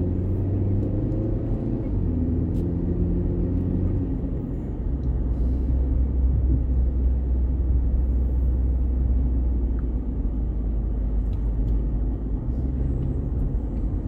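A car driving along a road, its engine and tyres making a steady low rumble. The engine note shifts lower about four seconds in and stays at that deeper drone.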